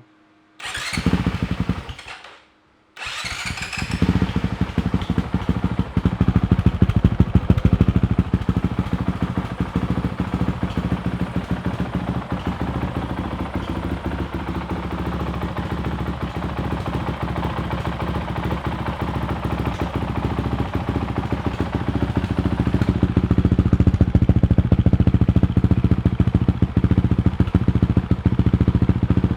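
Honda CRF450L's single-cylinder four-stroke engine, breathing through a full Yoshimura RS4 exhaust, starting for the first time. It fires briefly about a second in and stops, catches about three seconds in, then runs steadily, revs rising a little twice.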